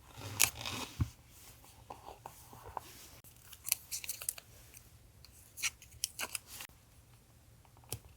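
Scissors snipping paper, with paper crackling in a louder stretch in the first second and then short sharp snips scattered through the rest. A refrigerator hums low and steady underneath.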